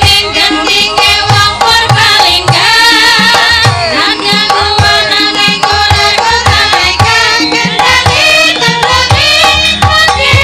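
Javanese gamelan music with kendang hand drums beating a steady dance rhythm under female sinden singing with a wavering vibrato.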